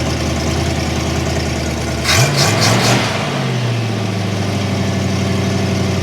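Rebuilt Mopar car engine running steadily. About two seconds in the revs climb with a brief louder rush, then hold at a higher steady speed.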